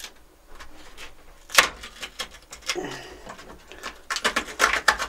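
Cellophane and peel ply crinkling and crackling as they are peeled off cured epoxy. There is a sharp crack about a second and a half in and a dense burst of crackling near the end.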